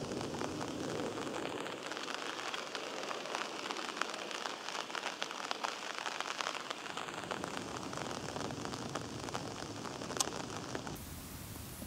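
Rain falling on leaves and the river surface: a steady hiss with many small drop ticks. About a second before the end the sound changes to a smoother, steadier hiss.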